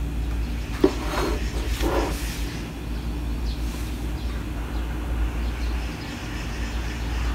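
A steel book clip snaps onto the edge of an open paperback with a sharp click a little under a second in, followed by a couple of rustles of paper pages, over a steady low rumble.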